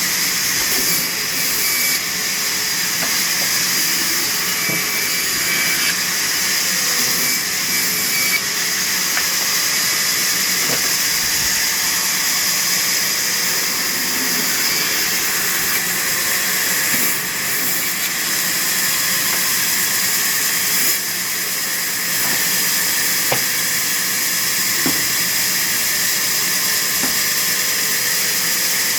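Sawmill saw running and cutting through timber, a steady high-pitched whine and rasp with a few brief dips in level.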